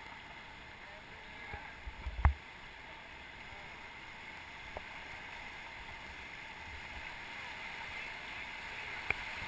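Steady rush of river water around a drifting raft, slowly growing louder, with a single sharp knock about two seconds in.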